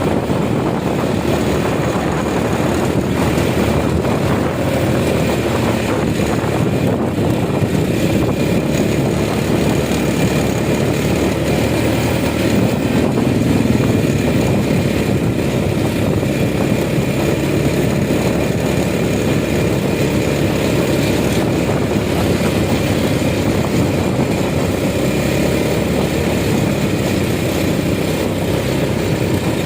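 An engine running steadily, with a constant drone that holds the same level throughout.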